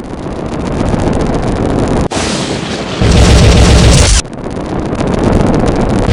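Explosion sound effects: a rumbling swell, then a very loud blast about three seconds in that lasts about a second and cuts off abruptly, followed by another rumble building up.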